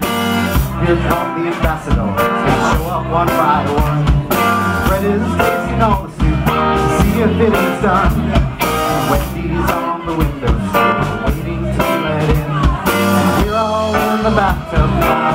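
Live blues-rock band playing: electric guitar over bass guitar and drums, with a man singing.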